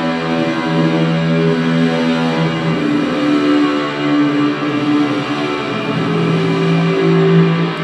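Electric guitar played through ambient reverb and delay pedals into an Orange Crush 35RT solid-state practice amp: sustained, overlapping notes that wash into one another, the held pitch changing every second or two.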